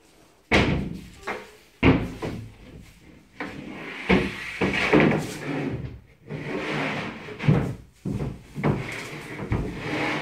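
Laminated particleboard panels of a flat-pack bed knocking against the frame as they are set down, with a stretch of scraping and sliding as a board is shifted into place. Sharp knocks come about half a second in and near two seconds, with more toward the end.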